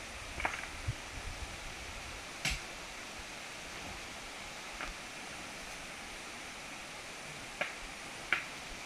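Stones knocking against each other as rocks are lifted and shifted by hand to clear a rocky trail: a handful of sharp, scattered knocks over a steady hiss.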